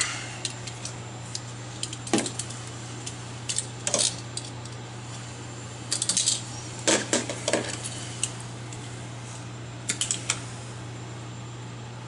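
Scattered short clicks and rattles of electrical wire leads and a wire stripper being handled at a refrigerator compressor's terminals, over a steady low hum.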